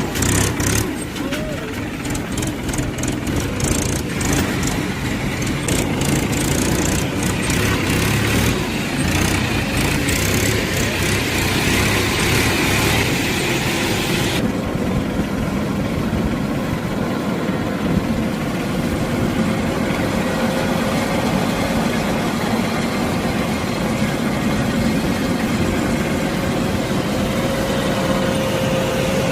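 Rice combine harvester running, a steady engine drone with many short clicks and rattles over roughly the first half.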